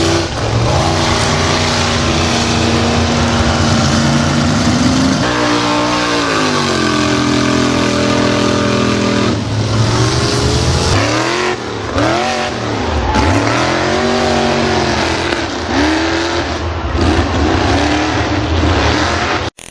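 Car engine revving hard under load, typical of a car trying to drive out of mud. It holds a high, steady note, drops about five seconds in, then is revved up and down several times in quick succession in the second half.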